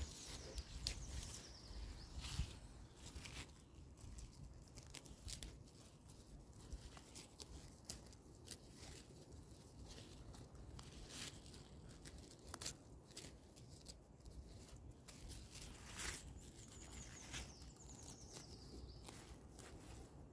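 Faint, irregular snapping and tearing of wild garlic (ramsons) stems being picked by hand, with rustling of the leaves as they are gathered into a bunch.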